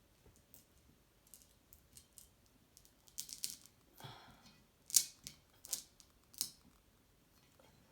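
Plastic electrical back box being handled and pressed into place: an irregular run of light clicks and scrapes, the loudest a sharp click a little past halfway.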